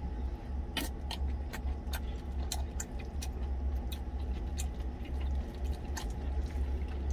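Close-up chewing of a mouthful of rice and vegetable tuna, with short wet mouth clicks about three times a second. Under it runs a steady low hum from the truck cab, typical of an idling engine.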